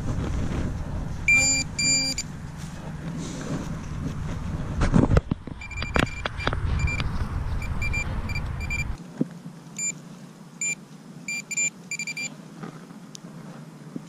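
Metal-detecting pinpointer beeping in short bursts as it is probed around a dug hole to locate a coin: a pair of beeps early, then a quick run of beeps in the middle and more toward the end. A few knocks from digging in the soil come about five seconds in, over a low wind rumble on the microphone that stops about nine seconds in.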